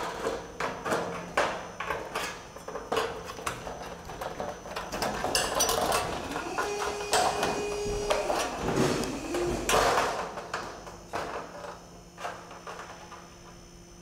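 Offset tin snips cutting a Colorbond steel fascia sheet: a run of sharp snips, then a louder, denser stretch of cutting and sheet-metal rattle about five to ten seconds in, easing off to a few light clicks near the end.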